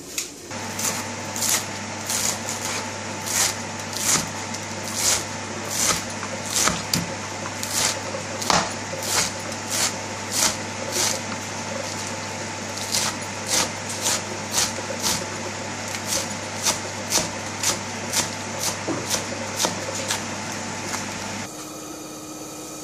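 A large kitchen knife chopping fresh spinach on a wooden cutting board: steady, even knocks about twice a second, with a short pause near the middle, over a steady low hum. The chopping and the hum stop shortly before the end.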